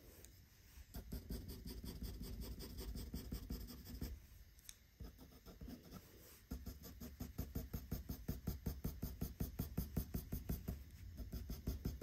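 Graphite pencil hatching on drawing paper: quick, even back-and-forth scratching strokes in a steady rhythm, with a pause of about two seconds near the middle.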